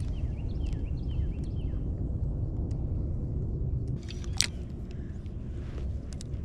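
Wind rumbling on the microphone with a low, steady noise, with a few faint short chirps in the first second and a half. About four and a half seconds in there is one sharp click as the spinning reel is handled.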